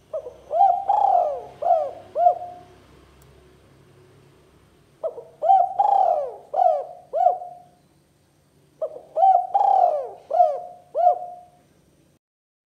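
Spotted dove (tekukur) cooing: three phrases of about five notes each, a few seconds apart.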